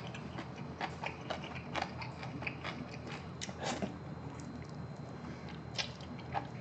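Close-up mouth sounds of eating spicy braised monkfish: wet chewing and irregular lip-smacking clicks while biting into a piece of monkfish held to the mouth.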